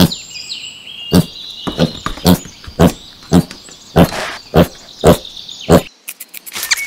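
Pigs grunting: a run of short, loud grunts, about two a second, that stops shortly before the end.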